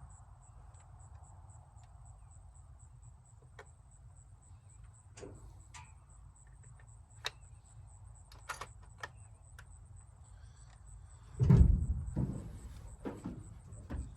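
Small clicks and knocks of a rifle being handled, then about 11.5 seconds in a single loud shot from a Remington 700 .30-06 bolt-action rifle, followed by a rolling rumble that dies away over a second or two.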